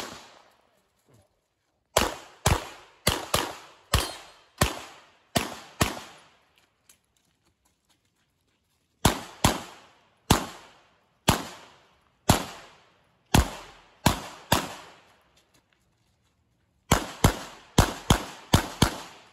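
Glock 48 9mm pistol fired in quick pairs: three strings of about eight to ten shots each, separated by pauses of two to three seconds. Each shot is a sharp crack with a short ring-out.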